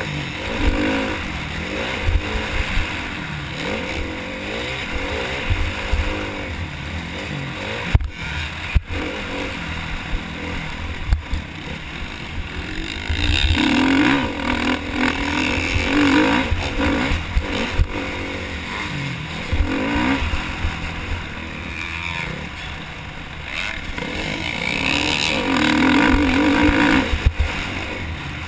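KTM motocross bike's engine revving up and down again and again as the rider accelerates and backs off around the track, heard from the rider's helmet with wind rushing over the microphone. A few sharp knocks cut in along the way.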